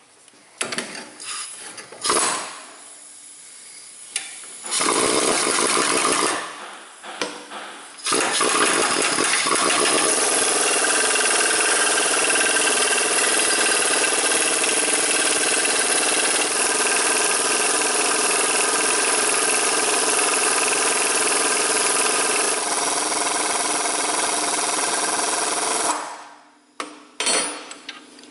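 Air impact wrench hammering the forcing screw of a hub tamer bearing press, pushing the front wheel bearing out of the steering knuckle. It starts with a few short bursts, then runs steadily for about eighteen seconds, then stops with a couple of quick blips near the end.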